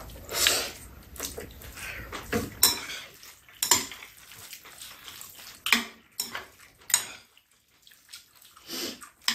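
Metal chopsticks clicking and scraping against noodle bowls as spicy mixed noodles are stirred and picked up, in an irregular run of small taps with a few sharper clinks.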